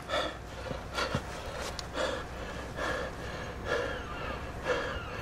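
A person breathing heavily in rhythmic gasps, about one breath a second, over a low steady hum.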